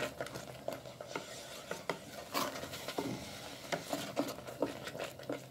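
Wooden spoon stirring and scraping a thick amla and sugar paste in a steel pot, with irregular scrapes and light knocks against the metal as the paste cooks down over medium heat.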